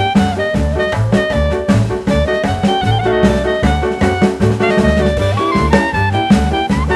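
Background music: an upbeat jazz or swing tune with horns, a walking bass line and drums.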